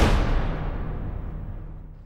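The decaying tail of a logo sting sound effect: a deep cinematic boom dying away into a low rumble that fades out near the end.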